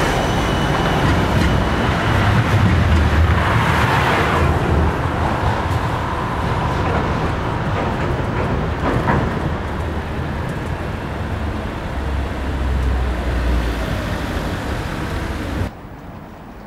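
City tram passing close along its rails, amid a steady rumble of street traffic. The noise swells in the first few seconds and then eases, and it cuts off abruptly to a much quieter background about a second before the end.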